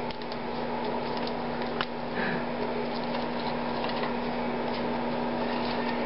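Great-billed parrot eating popcorn from a stainless steel bowl: faint scattered clicks and crunches as its beak works in the bowl, over a steady low hum.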